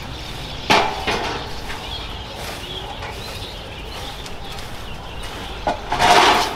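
Animal calls over a steady background: a short one about a second in and a louder, longer one near the end.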